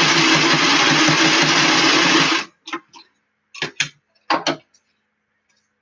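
Electric sewing machine running steadily while stitching a seam, stopping about two and a half seconds in. A few short clicks and rustles follow.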